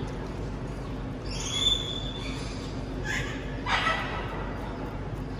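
Two short animal squeaks or calls over a steady background hum, one about a second and a half in and a louder, shorter one near four seconds.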